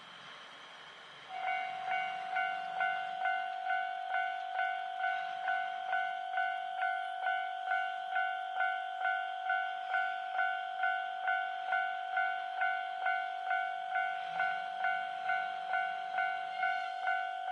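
Japanese railway level-crossing warning bell. It starts a little over a second in and rings steadily in even electronic dings, about two a second, signalling that a train is approaching.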